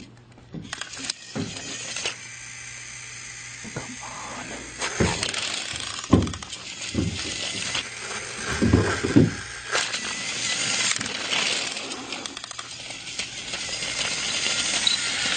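Battery-powered toy train's small motor whirring as it runs in reverse along its track, with scattered clacks and knocks, growing louder near the end. It runs backwards because its battery has been put in the other way round.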